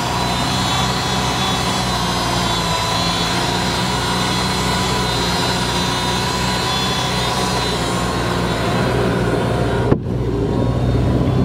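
Indmar V8 inboard engine of a direct-drive ski boat idling steadily, warmed up after about 30 minutes of running and running smooth. A sudden break with a click comes near the end, after which the idle goes on.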